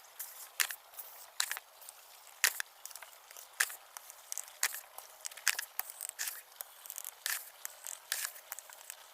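Poultry feed being scooped and poured into plastic chick feed trays: irregular crunchy clicks and scrapes, about one or two a second.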